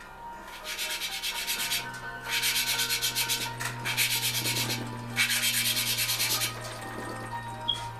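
Engine valve being lapped into its seat with grinding compound, the valve spun quickly back and forth by hand so it scrapes grittily against the seat. The scraping comes in four bouts of about a second each with short pauses between them, lapping the seat to an even contact line.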